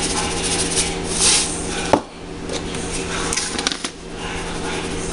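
Light handling sounds in a small kitchen over a steady background hum: a rustle about a second in, a sharp knock near two seconds, then a few light clicks.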